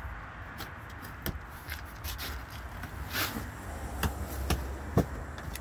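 Cardboard box being cut open with a box cutter and handled: scattered scrapes, rustles and clicks, with a sharp knock about five seconds in.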